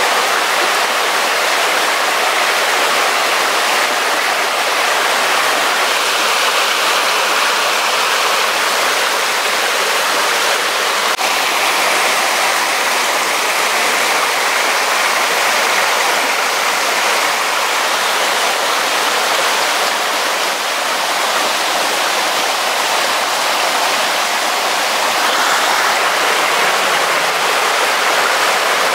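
Steady, unbroken rush of water from a fast-flowing rocky stream.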